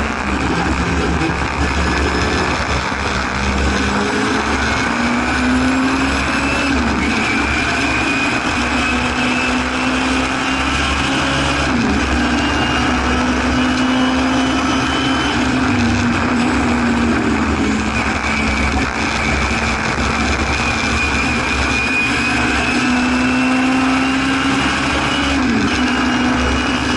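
Race-prepared Singer Chamois (Hillman Imp) rear-mounted four-cylinder engine, heard from inside the cabin while racing at high revs. The pitch climbs steadily and then drops sharply about four times, around two, seven, twelve and twenty-five seconds in, as the car changes gear or lifts.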